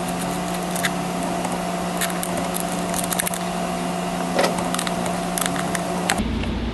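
Scattered light clicks and taps of a cable's ring terminal and nut being fitted by hand onto a golf-cart battery post, over a steady low hum that stops about six seconds in.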